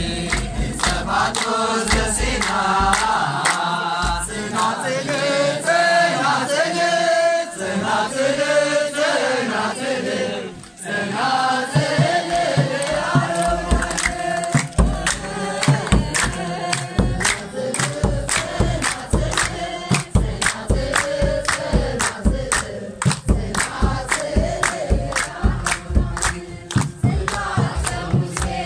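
A crowd of worshippers singing a chanted hymn together, with hand clapping and a kebero drum keeping a steady beat. The beats drop out for a few seconds about a third of the way in, then come back.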